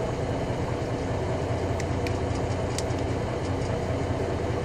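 Volvo semi truck's diesel engine idling steadily at low idle, about 600 rpm, heard from inside the cab. A few light clicks about two seconds in, from dashboard menu buttons being pressed.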